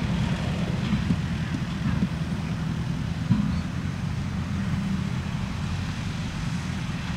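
Diesel engine of farm machinery running steadily, with a few light knocks.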